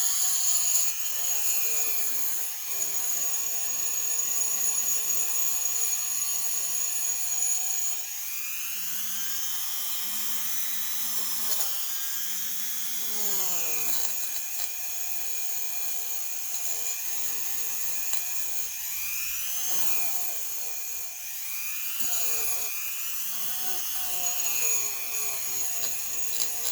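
Dremel rotary tool with a small wire brush running, its whine rising and falling in pitch as the brush bears on and lifts off the metal, scrubbing out the rust left by water standing in a carburetor float bowl.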